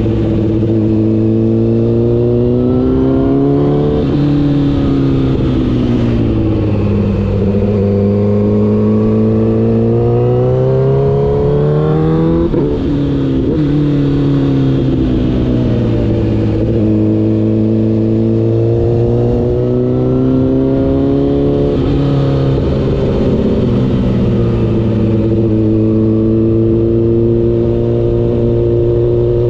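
Honda CBR1000RR's inline-four engine under way, its pitch climbing slowly under throttle and dropping back several times, then holding steady near the end.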